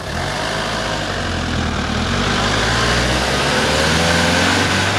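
Street traffic: a motor vehicle's engine running close by, steady and growing a little louder over the first few seconds.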